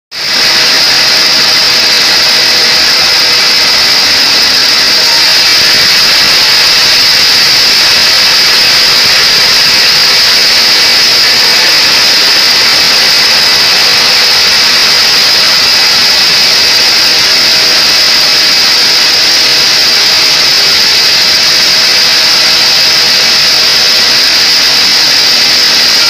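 Vertical band saw at a sawmill running and cutting through a mahogany log: a loud, steady mechanical noise with a high whine over a hiss.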